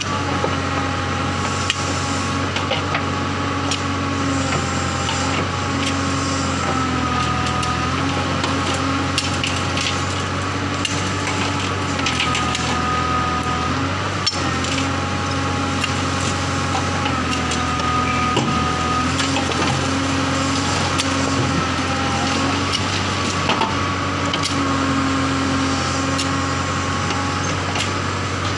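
JCB backhoe loader's diesel engine running steadily, its pitch shifting every few seconds as the hydraulics work the bucket. Scattered crunches and clicks of soil and stones under the bucket.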